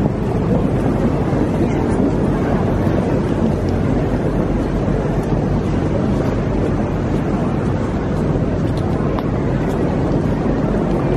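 Steady crowd hubbub in a busy railway station concourse: many people walking and talking, their voices blurred into one continuous noise.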